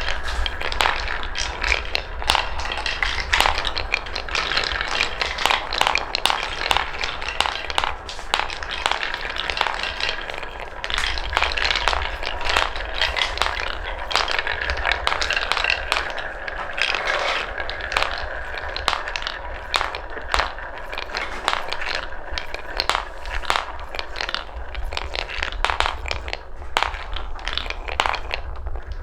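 Balls rolling along a wooden marble run track, a continuous rumbling roll broken by many sharp clicks and clacks as they drop, hit each other and knock against the wooden pieces.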